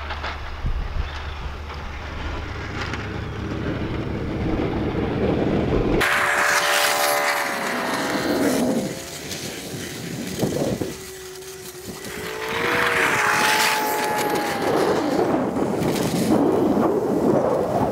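A Ford Super Duty pickup's engine revving up and down as the truck pushes snow with its plow, with a low wind rumble on the microphone until about six seconds in.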